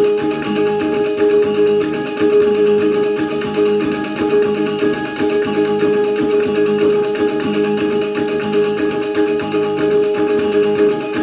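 Kulintangan gong ensemble music: small tuned gongs struck in a quick, even rhythm over a sustained ringing gong tone, the accompaniment for pangalay dance.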